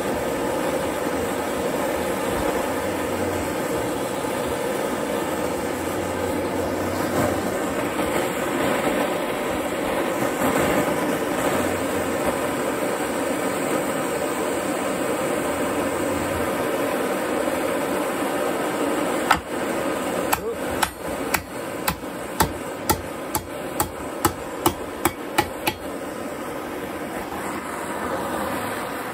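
Hand-held propane torch hissing steadily as it heats an iron nail at the anvil foot. About two-thirds of the way through, a hammer strikes metal about fourteen times in quick succession, roughly two blows a second, bending the heated nail over the anvil foot.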